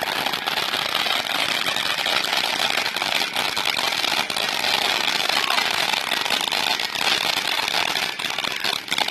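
Multi-shot consumer firework cake firing: dense continuous crackling, with a few sharper pops about three and four seconds in and again near the end.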